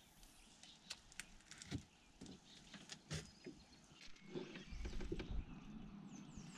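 Quiet handling sounds of a spinning rod and reel being cast and reeled in from a small boat: scattered faint clicks and knocks, then a low rumble from about four and a half seconds in as a fish is hooked and fought.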